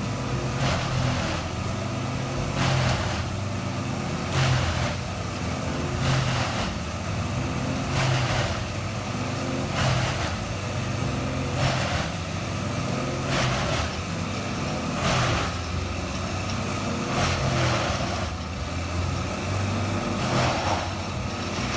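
A wood-processing machine's engine running steadily, with a harsh burst of noise repeating about every two seconds as wood goes through it.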